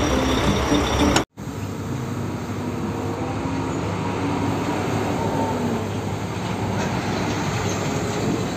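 Hino fuel tanker truck's diesel engine running with road noise as the truck drives by, after a brief run of stepped tones that breaks off about a second in.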